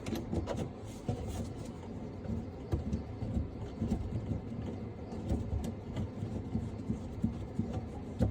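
Faint handling noises under a sink: scattered light clicks and knocks of plumbing fittings and supply hoses being handled, over a low rumble.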